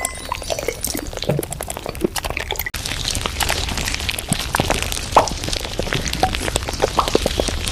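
Café sounds: a stream of small clicks and clinks, some ringing briefly, over a steady low hum. About a third of the way in it cuts abruptly to a denser, busier clatter.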